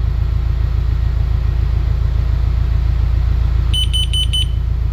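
Carbon monoxide alarm sounding four quick, shrill beeps near the end, the four-beep carbon monoxide warning pattern, still alarming because its CO reading has not yet fallen to zero. Under it runs a steady low rumble of an idling engine.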